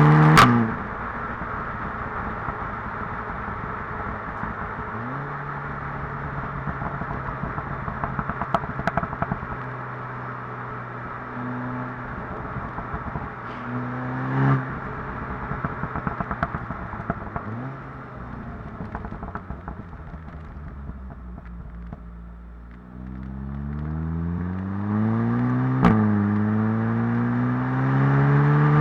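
SEAT Leon Cupra 290's turbocharged 2.0-litre four-cylinder, breathing through a sports exhaust with the middle silencer deleted, accelerating through the DSG gears. The revs climb and drop at each upshift, with a sharp exhaust bang on several of the shifts, and there are crackles and pops in between.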